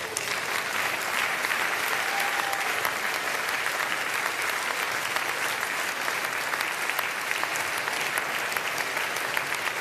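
A large audience applauding: many hands clapping in a dense, steady wash that holds without a break.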